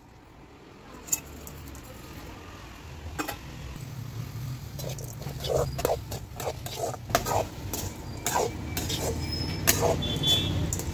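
Metal slotted ladle scraping and clinking against a metal pot as shallots, curry leaves and tomato are stirred over a wood fire; a single click about a second in, then a quickening run of knocks and scrapes from about halfway through.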